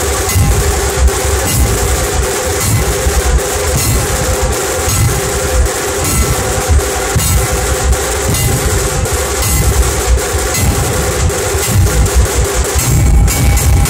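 Dhol tasha pathak: a large group of dhol barrel drums beaten together in a loud, fast, driving rhythm, with tasha drums cracking sharply over the deep dhol strokes.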